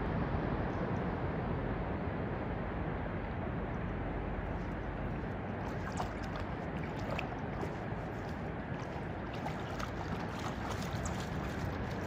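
Norwegian Elkhound wading through shallow water, with light splashing from about five seconds in, over a steady rushing noise.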